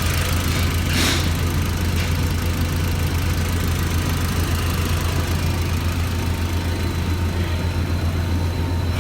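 2004 VW Golf's 2.0-litre four-cylinder engine idling steadily, now running with a new ignition coil pack after the old shorted one kept blowing the ECM power-supply fuse. There is a brief hiss about a second in.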